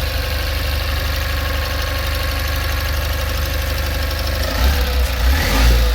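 Tata Ace Gold's small two-cylinder petrol engine, the same engine as in the Tata Nano, idling steadily just after a restart, its throttle freshly cleaned and its fault codes cleared. About four and a half seconds in it is revved briefly and gets louder.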